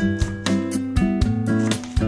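Background music: steady acoustic guitar strumming with a regular beat.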